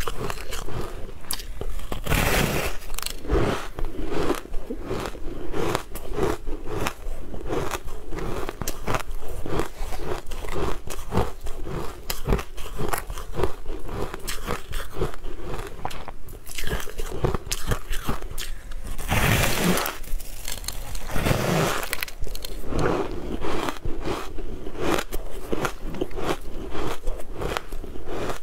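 Close-miked crunchy biting and chewing of a white, fluffy food coated in green powder: many crisp crackles in quick succession, with a few louder, longer crunches about two seconds in and twice near two-thirds of the way through.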